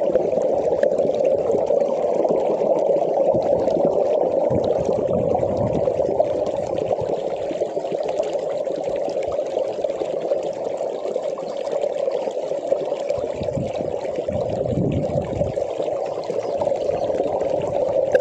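Stream water running steadily, the flow raised by recent rain, with a few deeper surges.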